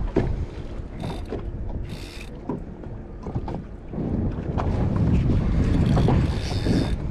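Fishing reel clicking irregularly while a hooked grouper is played on the rod. From about four seconds in, wind buffets the microphone.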